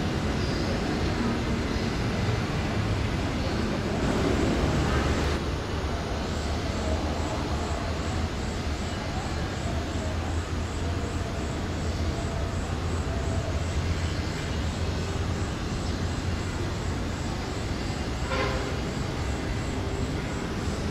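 Steady low rumble of engine and traffic noise, swelling a little about four seconds in.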